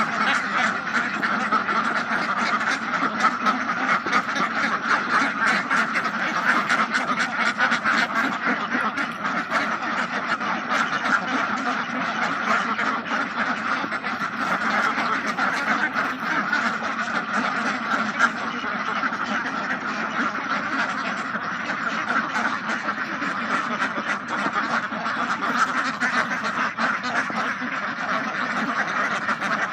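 A large flock of domestic ducks quacking all at once: a dense, unbroken din of many overlapping calls that stays at a steady level throughout.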